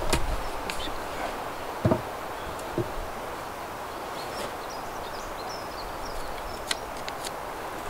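Dull wooden knocks as a peeled log is lowered onto the tops of wooden posts, the heaviest about two seconds in and a lighter one about a second later, over steady background noise; a few small clicks near the end.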